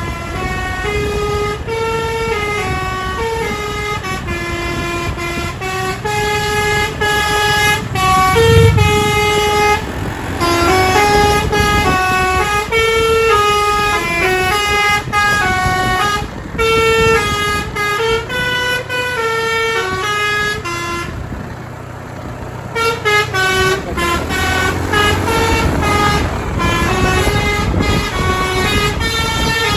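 Telolet bus horn, a multi-tone air horn, playing tune after tune, its notes stepping up and down several times a second. It breaks off briefly a little over two-thirds of the way through, then resumes with a quick run of notes.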